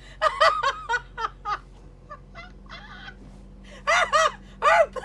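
A woman laughing hard in quick, high-pitched bursts: one bout near the start and a second, louder one near the end.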